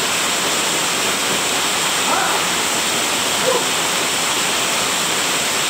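Waterfall rushing steadily, an even wash of falling water.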